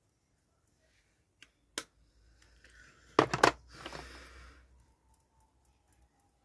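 A blush compact and makeup brush being handled: a couple of sharp clicks, then a loud cluster of clicks and taps about three seconds in, followed by a soft rustling scrape for a second or so, as of the brush being worked in the powder.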